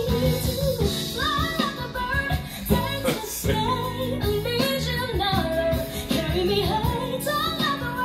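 A woman singing a soulful ballad with sweeping vocal runs, accompanied by acoustic guitar, piano and bass guitar.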